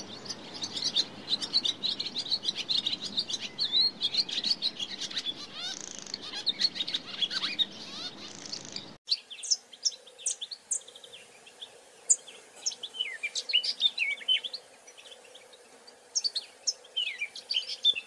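Small songbirds chirping and twittering. A dense, quick chatter fills the first half. After an abrupt change about halfway through, it turns into sparser thin chirps and short down-slurred high calls.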